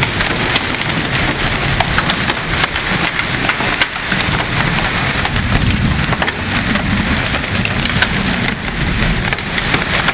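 Heavy rain mixed with hail, with a steady downpour and many sharp, irregular clicks of hailstones striking.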